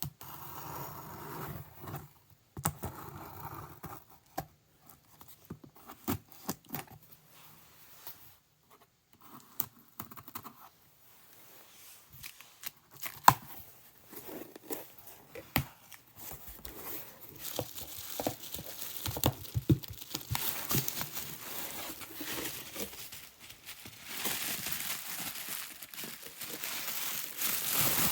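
Packaging being opened by hand: scattered clicks and knocks of handling, then steady tearing and crinkling of wrapping that grows louder over the second half.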